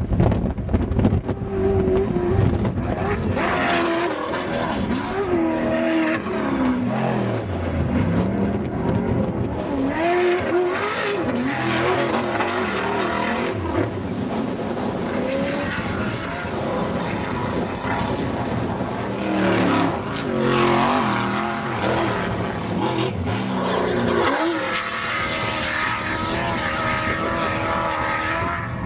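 Off-road desert race vehicles' engines revving hard, the pitch rising and falling again and again as they accelerate, shift and pass, with several louder passes.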